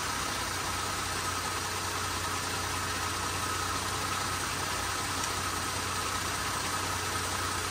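Jeep Grand Cherokee 3.6-litre Pentastar V6 idling steadily at operating temperature. The engine is kept running for the transmission fluid-level check.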